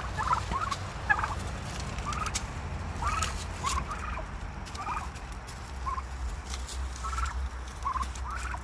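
A flock of domestic turkeys gobbling, with short rapid gobbles from several birds coming again and again and overlapping. A low rumble runs underneath.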